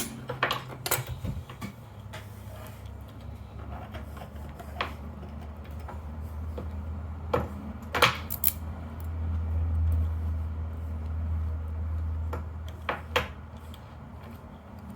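Scattered small metallic clicks and clinks of a Paclock 90a Pro padlock and its parts being handled during disassembly, over a low hum that swells in the middle and fades again.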